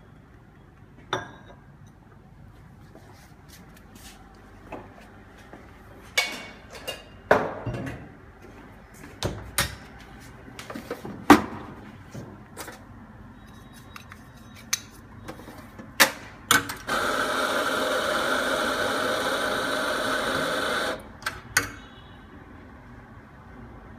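Metal and ceramic knocks and clacks as a portafilter and cups are handled at the espresso machine. About two-thirds of the way through, an espresso grinder runs steadily for about four seconds and stops.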